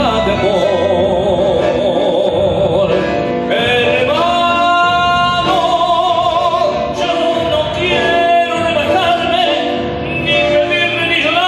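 Male tango singer singing long held notes with a wide vibrato, accompanied by bandoneón and piano.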